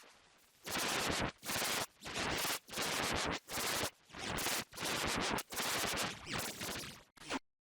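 Electronically edited logo-effect audio: a chain of about ten harsh, distorted noise bursts, roughly one every 0.7 seconds, each stopping abruptly.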